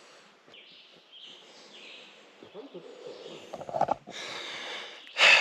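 A hiker breathing hard while climbing a steep trail, the breaths growing louder over the last second or so and ending in a loud exhale.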